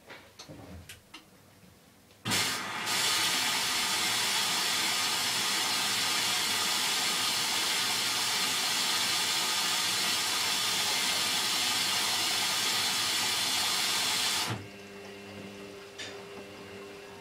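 Hoover DYN9144D3X washing machine filling with water: a loud, steady hiss of water rushing in through the inlet valve starts suddenly about two seconds in and cuts off about twelve seconds later. After it stops, a fainter hum is left.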